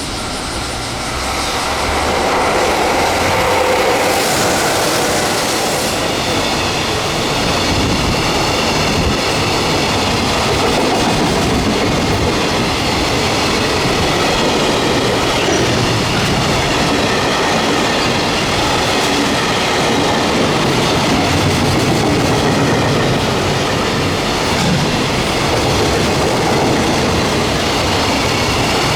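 Freight train hauled by an EF66 electric locomotive passing close by at speed: a loud, unbroken rolling of wagons over the rails, swelling about two seconds in and then holding steady, with faint high ringing tones above it.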